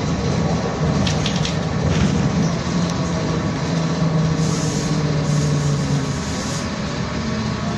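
Interior running noise of a BKM-32102 trolleybus under way: a steady low hum and road rumble, with a few light rattles about a second in and a rising whine near the end as it picks up speed.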